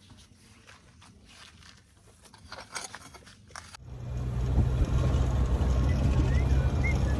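Faint scattered clicks and scrapes, then about four seconds in an abrupt change to a tractor engine running with a loud, steady low drone.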